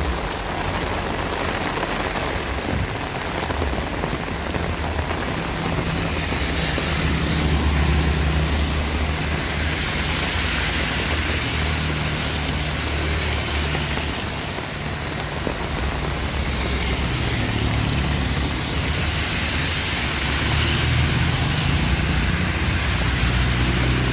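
Heavy rain falling steadily as a dense hiss, with a low rumble underneath that swells about a quarter of the way in and again near the end.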